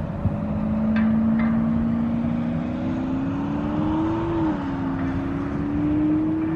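A motor vehicle's engine accelerating: its pitch climbs steadily, then drops sharply as it shifts up a gear, climbs again and drops once more near the end.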